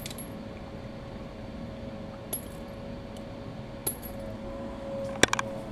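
Weihrauch HW5 T revolver and its .22 cartridges being handled: a few light, scattered metallic clicks, then two sharper clicks close together near the end.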